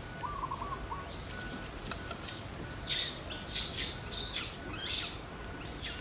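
A run of about six short, very high-pitched animal calls, each rising and falling in pitch, starting about a second in.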